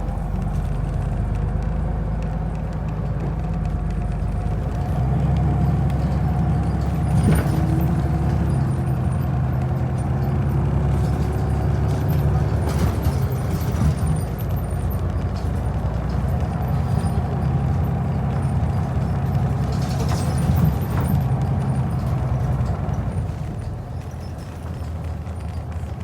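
Steady low rumble of a running vehicle, with a faint whine that rises slowly and a few sharp clicks.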